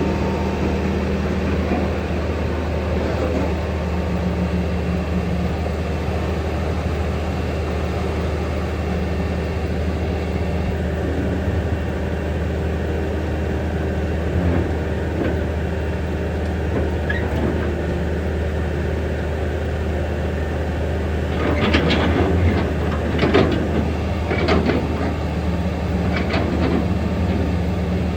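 Hitachi excavator's diesel engine running steadily under load. From about 21 seconds in, a run of sharp clanks and scrapes lasts for several seconds as sand is loaded into the dump truck.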